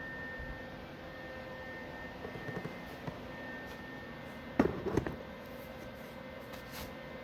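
Steady low hum and hiss, broken about four and a half seconds in by a quick run of several knocks lasting about half a second.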